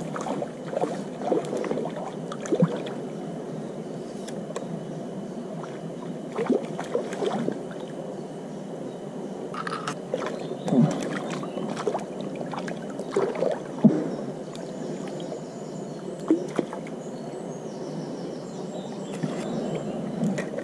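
Shallow stream water sloshing and splashing close by as it is stirred, with irregular splashes throughout.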